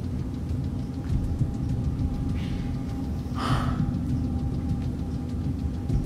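Low, uneven rumble from a handheld phone's microphone as it is carried through a room, with a faint steady hum underneath and one short hiss about three and a half seconds in.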